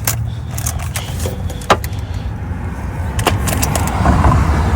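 Sockets and hand tools clinking and rattling against metal as sizes are tried on the skid plate fasteners, with several sharp clicks over a steady low hum.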